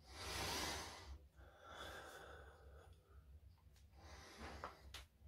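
A man breathing hard: one long, strong exhale in the first second, a weaker breath about two seconds in, and a short click near the end.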